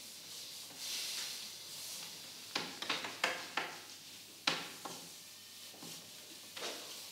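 Rustling, then a series of light, irregular knocks and clicks, about half a dozen, in a small room.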